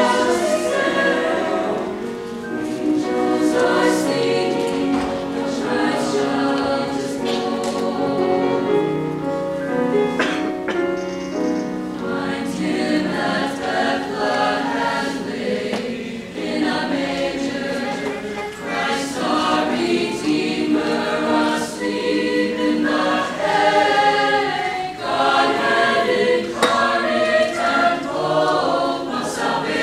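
A high school choir singing in harmony, many voices holding and moving through chords.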